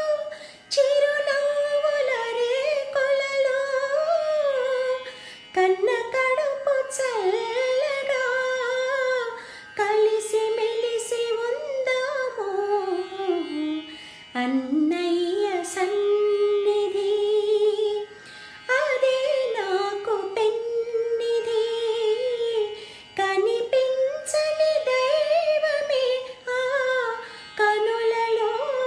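A woman singing a slow Telugu film song solo, in phrases of a few seconds with long held notes that slide and waver in pitch, and short breaths between them.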